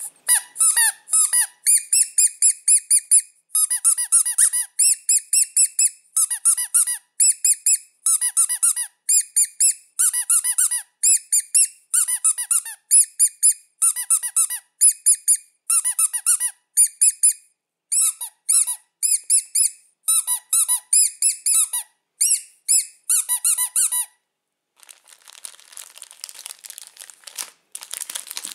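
Rapid runs of short, high-pitched squeaks, several a second, broken by brief gaps, stopping about 24 seconds in. Near the end they give way to a fainter crinkling of candy wrappers.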